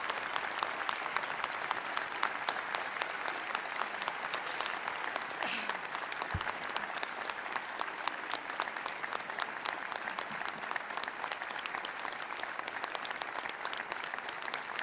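Audience applauding steadily after a new university president is introduced, with a single low thump about six seconds in.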